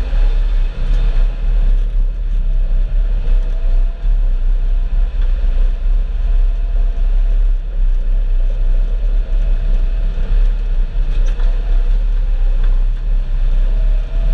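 Farm tractor engine running steadily, a deep rumble with a faint steady whine above it.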